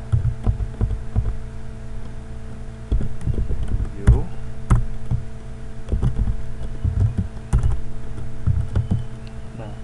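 Scattered computer keyboard keystrokes, sharp irregular clicks, over a steady electrical hum and heavy low thumping on the microphone.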